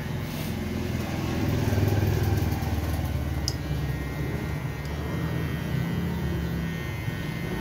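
Electric hair clipper buzzing steadily as it is run over a shaved scalp, swelling louder for a moment about two seconds in.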